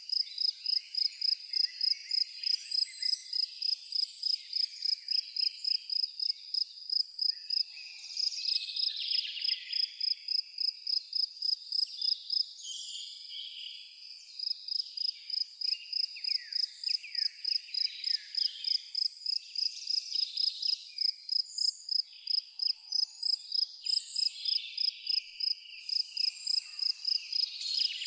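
A cricket chirping steadily on one high note, about three chirps a second, pausing for a couple of seconds about halfway, over a background of many birds singing.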